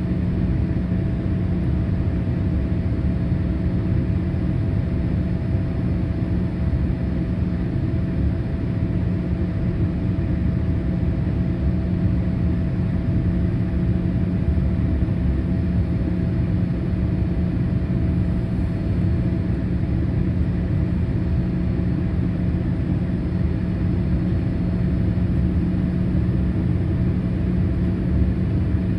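Steady in-flight cabin noise of a Boeing 787-8 airliner: a continuous low rumble of engines and airflow with a steady low hum, heard from inside the passenger cabin.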